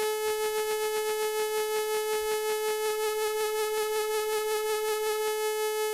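Artisan Ottava analog-hybrid synthesizer holding one steady note. A free-running LFO wobbles the second oscillator's pitch, wavering about four times a second. The wobble grows deeper about halfway through as the pitch-modulation amount is turned up to full.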